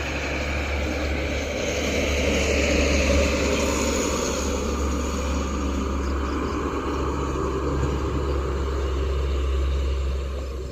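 Steady engine rumble with a broad rushing noise that swells about three seconds in and then eases.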